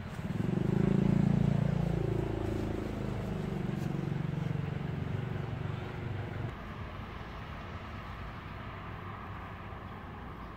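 A motor vehicle's engine passes close by. It is loudest in the first two seconds, its note falls slightly, and it fades out about six and a half seconds in.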